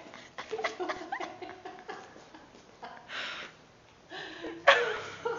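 People chuckling and breathing out in short laughs, with soft voice sounds and a few light clicks in the first second or so; the loudest laugh comes near the end.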